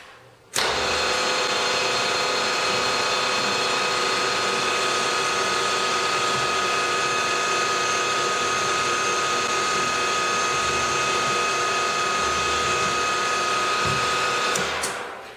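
Milling machine spindle running at a steady speed with a high whine while a small drill bit in its chuck drills a set-screw hole in a metal block. It starts abruptly about half a second in and winds down near the end.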